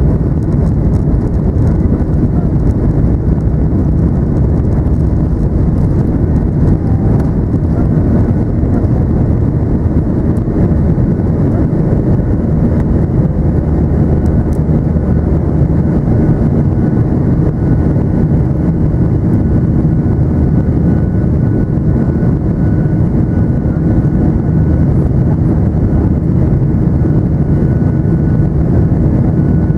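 Cabin noise of a Boeing 737-900ER under takeoff thrust, heard from a window seat over the wing: its CFM56-7B turbofans and the airflow make a loud, steady, deep roar through the takeoff roll and climb-out. A faint high whine comes in about halfway through.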